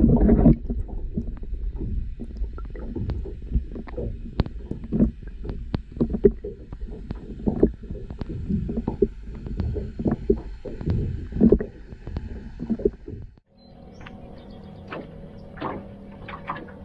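Muffled underwater rumble of moving water, heard through a submerged camera's housing, with frequent small clicks and knocks. About 13 seconds in it cuts off abruptly to quieter open-air sound with a faint steady hum and scattered light taps.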